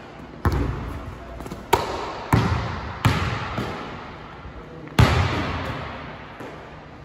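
Basketball bouncing hard on a hardwood gym floor: five separate bounces over about five seconds, the last near the end. Each bounce rings on in the gym's echo.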